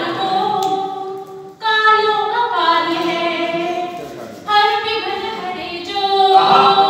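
A woman singing verse unaccompanied, in long held, melodic phrases; new phrases begin about a second and a half in and again about four and a half seconds in, each starting strong and fading.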